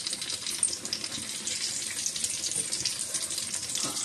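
Egg-coated potato-and-chicken cutlets shallow-frying in hot oil in a pan: a steady sizzle with many small crackles.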